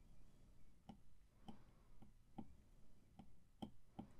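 Faint, light clicks of an Apple Pencil's plastic tip tapping the iPad's glass screen with each short shading stroke, about two to three a second.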